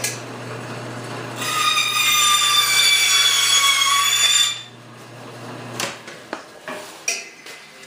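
Electric power saw running and cutting a small block of wood: a steady motor hum, with a loud high whine from about a second and a half in until about four and a half seconds while the blade is in the wood. The motor winds down near six seconds, followed by a few knocks as the piece is handled.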